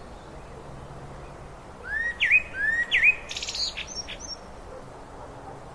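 A songbird sings one short phrase about two seconds in: two rising, swooping whistles, then a quick run of higher chips. Under it runs the steady rush of a river.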